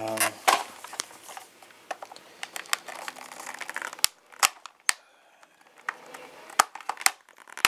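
Hard plastic parts of a G.I. Joe Night Raven toy jet clicking and knocking as they are handled and fitted together: a run of irregular sharp clicks, the louder ones in the second half.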